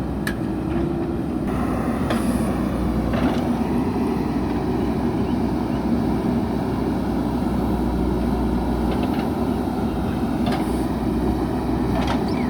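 JCB backhoe loader's diesel engine running steadily under work, with a few brief knocks.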